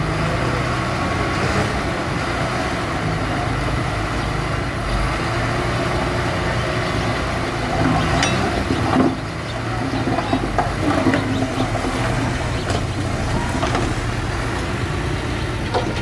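Diesel dump truck engine running while its tipper bed is raised, with rock clattering and sliding out of the bed from about halfway through.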